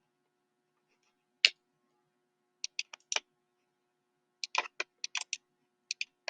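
Irregular clicking at a computer as a design is built on screen: a single click, then short quick clusters of two to four clicks from the keyboard and mouse.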